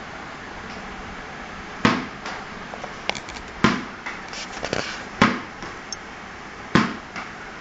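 Thumps and knocks from a person's rough play with dogs: about five sharp, loud hits at irregular intervals, with a few lighter clicks between them.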